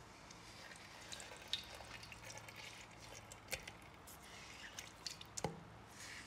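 A glitter-coated floral foam block being squeezed and broken apart by hand: faint, scattered crackling and crunching, with a few sharper cracks about a second and a half in, midway, and near the end.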